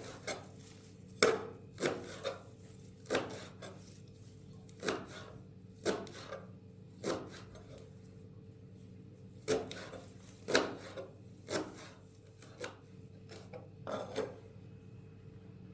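Chicory being chopped by hand: sharp chopping strikes at an uneven pace of about one a second, with a few short pauses.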